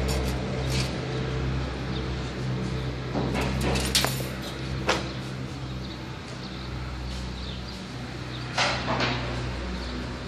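Wire straightening and cutting machine running with a steady low hum, with a few sharp metallic clinks of steel wire rods, a cluster around four to five seconds in and another near nine seconds.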